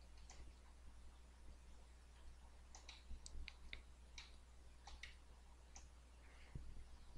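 Faint, scattered computer mouse clicks, about a dozen and irregular, over a low steady hum of near-silent room tone.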